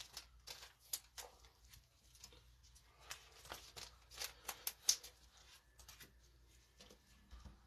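Trading cards being handled and sorted: faint, irregular rustles and light clicks of card stock.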